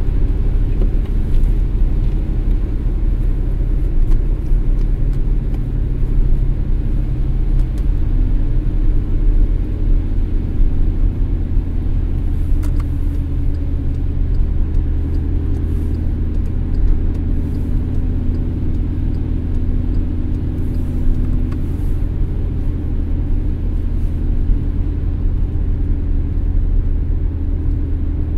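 Car being driven: a steady low rumble of road and engine noise, with a low hum that shifts to a slightly different pitch about eight seconds in.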